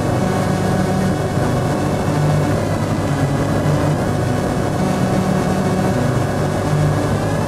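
Light single-engine aircraft's engine and propeller running steadily in flight, heard from inside the cockpit as an even, low drone.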